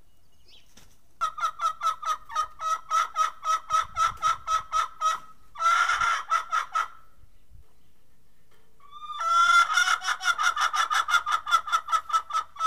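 Domestic brown hen cackling: a run of quick clucks, about four a second, then one long, loud squawk, then a second, faster run of clucks that starts with a rising call.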